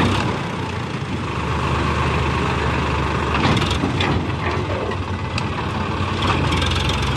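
Tractor's diesel engine running steadily as its hydraulic tipping trailer dumps a load of sand, with a couple of brief clatters about three and a half and four seconds in.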